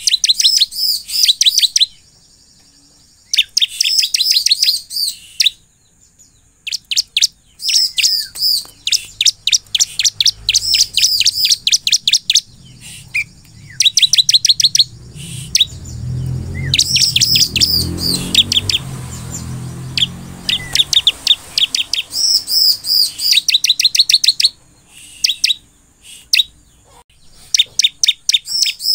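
Bar-winged prinia (ciblek) singing in lively form: fast trains of sharp, high chirps in bursts of one to two seconds, repeated with short pauses. A low rumble swells and fades about halfway through.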